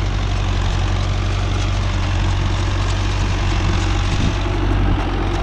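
Tractor engine running steadily at a constant speed, a deep low hum with a noisy mechanical clatter over it.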